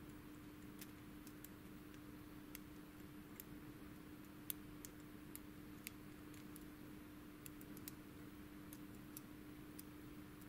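Faint, irregular metallic ticks of a lock pick working the pins inside a Thirard high-security euro cylinder under tension, over a low steady hum.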